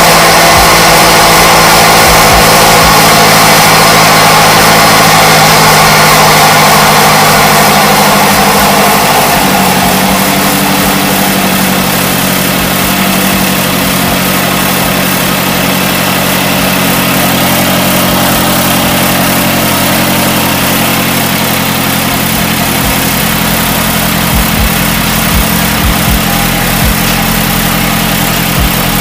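Mazdaspeed 3's turbocharged 2.3-litre four-cylinder engine running steadily, heard through a freshly fitted 3.5-inch HTP intake. It eases off slightly about nine seconds in.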